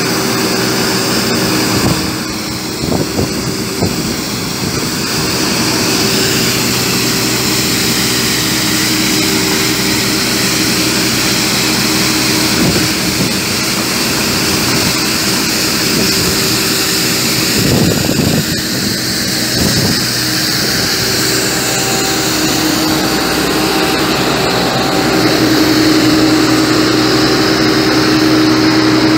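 Compact sidewalk sweeper running steadily with the hiss and scrape of its two rotating front brushes on paving stones, its engine getting louder in the last few seconds.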